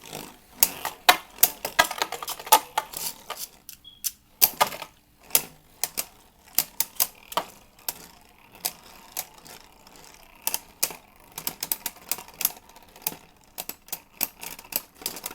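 Two Beyblade Burst spinning tops, Mirage Fafnir among them, battling in a plastic stadium. Their repeated clashes make a stream of sharp, irregular plastic clicks and clacks, denser near the end.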